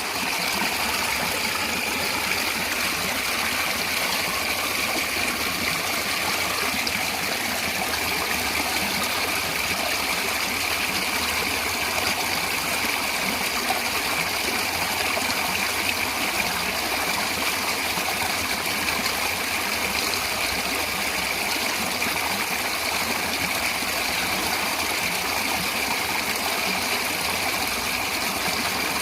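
Natural running water, such as a stream, flowing steadily.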